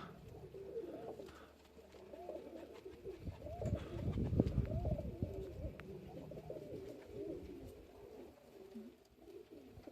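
Several domestic pigeons cooing, overlapping rising-and-falling coos throughout. A low rumble comes in about three and a half seconds in and fades after about two seconds.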